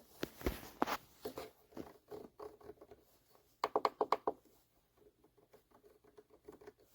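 Small clicks, taps and scratchy handling noises on a 3D printer that is not powering on, with a quick run of about six clicks about four seconds in.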